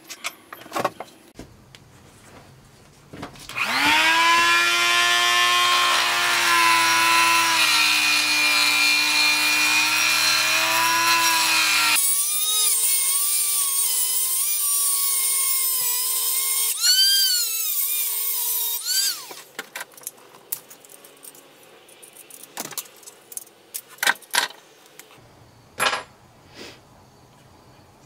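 Handheld high-speed rotary tool running and cutting into the plastic of a tripod quick-release head. Its whine starts a few seconds in, changes abruptly to a higher, thinner tone partway through, dips in pitch once, then cuts off. Scattered light clicks and knocks of handling come after.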